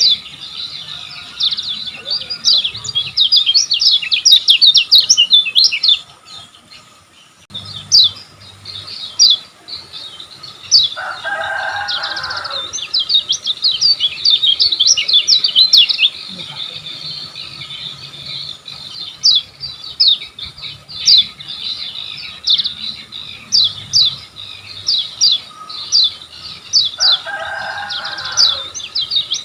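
Lemon-bellied white-eye (kecial kuning) singing: fast, dense strings of high, downward-sweeping chirps, with a short break about six seconds in. A lower call sounds twice, about eleven seconds in and near the end.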